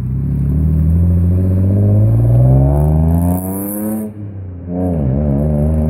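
A car engine revving: its pitch climbs steadily for about four seconds, drops and wavers briefly near the end, then holds.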